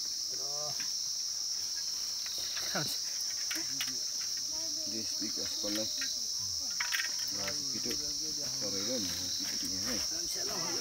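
Insects droning steadily at a high pitch, with quiet voices underneath and a few light knocks.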